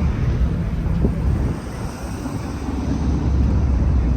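Wind buffeting the microphone: a low rumble that eases briefly about two seconds in.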